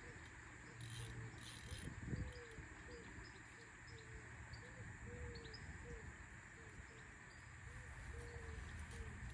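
Fishing reel being wound in while the bent rod plays a hooked fish: a short squeak with each turn of the handle, about twice a second, over a low wind rumble.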